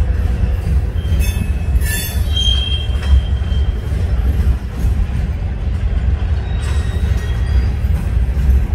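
Freight train rolling past with a steady low rumble and a few brief, high wheel squeals in the first three seconds.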